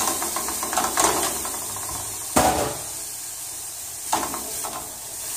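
Sliced onion sizzling in a dry nonstick frying pan, cooked without oil, while a wooden spoon stirs it with scrapes and knocks against the pan. The loudest knock comes about two and a half seconds in. Liver fillets searing in a second pan add to the steady sizzle.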